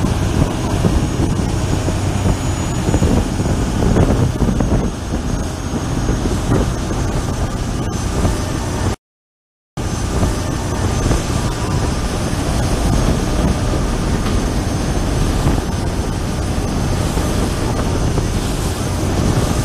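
Tow boat's engine running steadily under heavy wind noise on the phone's microphone. The sound cuts out completely for under a second about nine seconds in.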